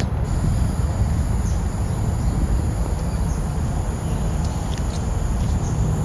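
Steady low rumble of a distant tandem-rotor Chinook helicopter's rotors, mixed with wind on the microphone. A few faint high chirps in the second half.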